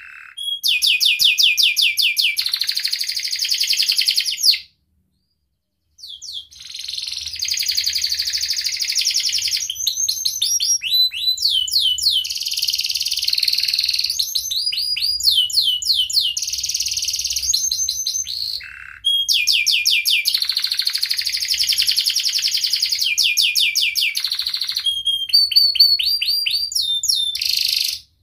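Domestic canary singing: long phrases of rapid trills and sharp chirping notes with quick up-and-down whistles. The song stops for about a second around five seconds in and dips briefly near nineteen seconds.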